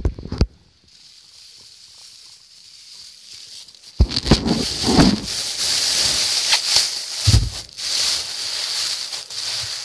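A couple of sharp knocks at the start, then about four seconds in a sudden loud rustling and rubbing right against the microphone, with a few thumps, as the phone is handled with its lens covered.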